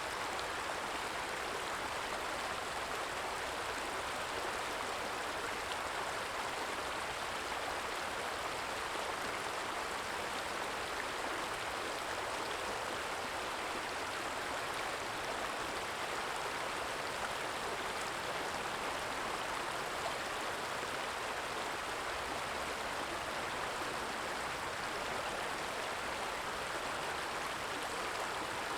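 Stream water flowing and trickling, a steady even rush of running water.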